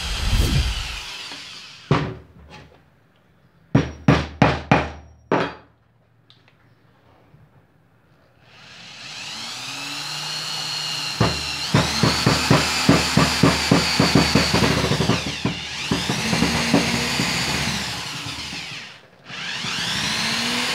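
Several sharp knocks, then the Bosch GSR 7-14 E corded drill-driver's motor spins up with a rising whine and runs in bursts, straining to drive a 1/4" screw into hard wood. Rapid clicking, about three a second, comes through the motor noise as the screw stalls and its head strips without the screw going in.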